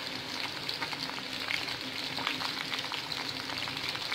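Chicken pieces frying in hot oil in a kadai: a steady crackling sizzle, the chicken nearly browned.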